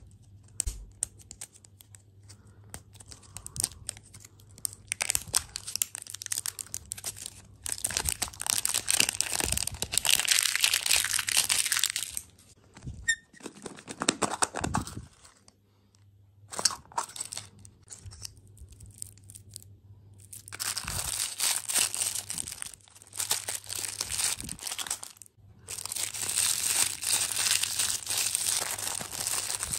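Foil wrapper being torn and crinkled off a ball-shaped surprise lollipop, then a small clear plastic bag of toy parts being crinkled. The rustling comes in several loud stretches with short quiet pauses between them.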